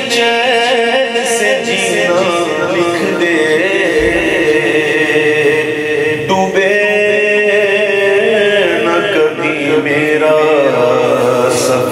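A man singing a naat, an Urdu devotional poem, into a microphone, drawing out long melismatic notes with a wavering pitch.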